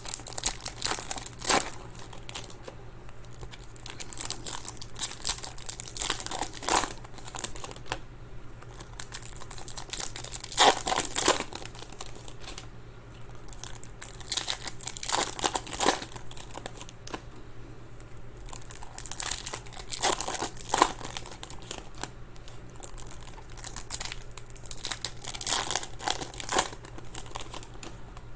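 Foil wrappers of Topps Chrome baseball card packs crinkling and tearing as packs are ripped open one after another, in bursts every second or two, over a faint steady low hum.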